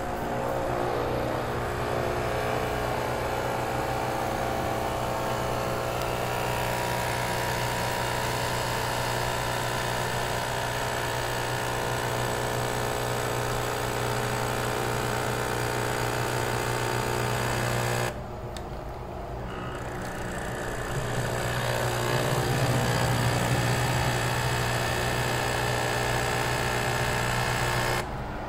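Capsule machine's pump buzzing steadily as it brews a mate tea capsule into a mug. The buzz eases off for a moment about two-thirds of the way through, then runs on a little louder and cuts off suddenly near the end.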